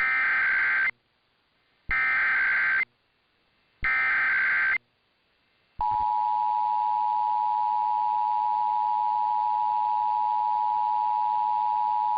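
Emergency Alert System header: three short bursts of warbling SAME data tones, each about a second long with a second's pause between. The steady two-tone EAS attention signal begins about six seconds in and holds. The sequence announces an incoming alert, here a required monthly test.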